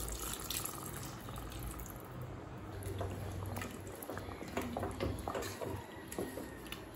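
Water poured into a steel pressure cooker of chicken masala gravy, then a wooden spatula stirring it, with small knocks against the pot from about halfway on.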